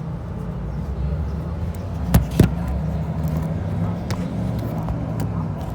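Steady low rumble of an idling vehicle engine, with two sharp clicks about a quarter second apart a little over two seconds in.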